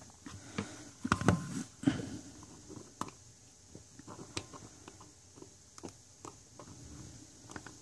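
Small metal clicks and taps of a screwdriver and fingers on a rebuildable dripping atomizer deck as the trimmed kanthal coil leads are bent up. A few louder knocks come about one to two seconds in, then fainter, irregular ticks.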